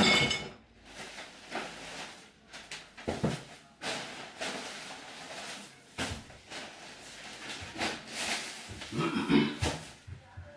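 Kitchen clatter from cooking at a gas cooker: a pan and utensils handled, with irregular knocks, clinks and scrapes.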